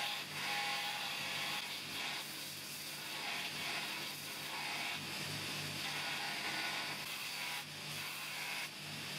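Belt grinder running with a carbon-steel knife blank pressed against the abrasive belt: a steady grinding hiss over the motor's low hum. The grinding dips briefly a few times as the blank is lifted and repositioned.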